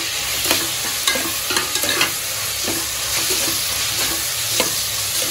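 Chopped tomatoes, onions and spices sizzling in hot oil in a pressure cooker, with a steady frying hiss. A metal spoon stirs through them, clinking and scraping against the pot about eight times.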